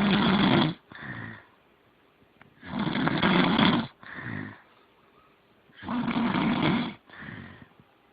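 Loud snoring in a regular rhythm. Three breaths, about three seconds apart, each a long snore of about a second followed at once by a shorter, softer one.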